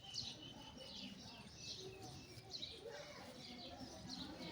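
Small birds chirping faintly, a steady run of short, high, downward-sliding chirps coming several times a second.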